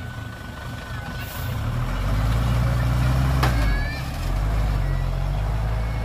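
Heavy diesel engine of earthmoving machinery running and picking up load about a second and a half in, easing briefly near the fourth second, with a sharp metallic click partway through.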